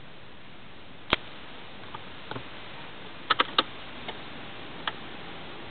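Irregular sharp clicks over a steady hiss: one about a second in, a cluster of three about three and a half seconds in, and another near the end. This is the abnormal noise being recorded.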